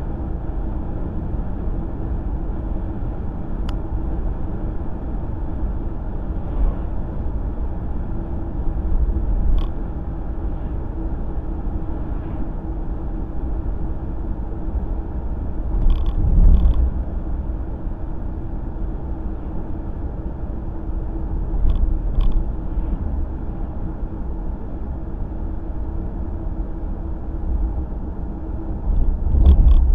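Steady road and engine noise of a car driving, heard inside the cabin, with a low steady hum. A few brief knocks and swells come through, the loudest about halfway through and near the end.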